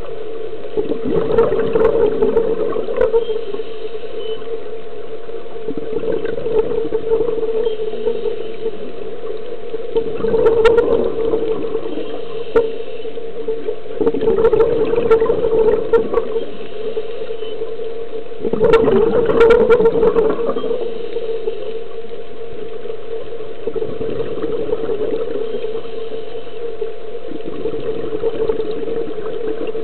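Scuba diver breathing through a regulator underwater: exhaled bubbles gurgle out in bursts about every four seconds, about seven times, over a steady hum.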